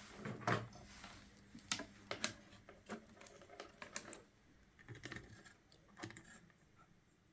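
Faint, irregular light clicks and taps of small parts being handled as a cable connector is unplugged from a circuit board and test probes are set in place.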